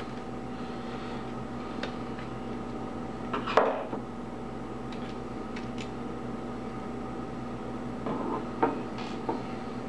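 Small metal screws and a magnetic screwdriver clicking and clinking against laptop parts as the heatsink screws are taken out and set aside: a handful of short clicks, the loudest about three and a half seconds in, over a faint steady hum.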